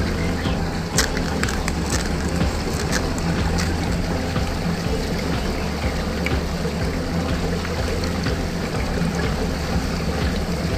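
Water swirling and rushing down a whirlpool drain hole, a steady churning wash over a constant low hum, with a few sharp splashes in the first few seconds.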